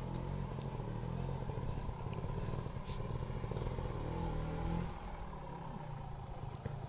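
Trials sidecar outfit's motorcycle engine running at low revs, its note dropping lower and a little quieter about five seconds in.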